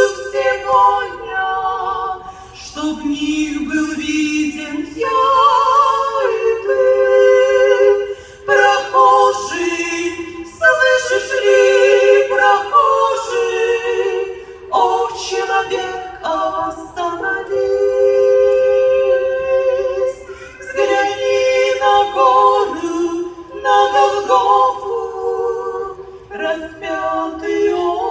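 Unaccompanied voices singing a slow Russian sacred song about the crucifixion in harmony, several parts moving together in long held notes.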